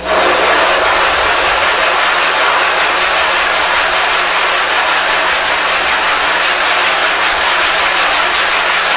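Sharpening stone being scrubbed back and forth over abrasive grit on a glass plate to flatten its face: a loud, steady scraping grind.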